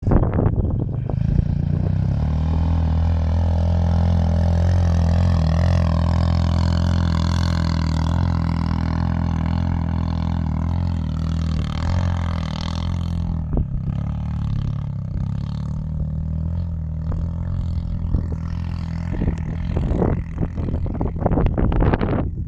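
ATV engine running steadily under load while climbing a slope, its drone strongest over the first half and easing after about 13 seconds. A run of sharp knocks comes near the end.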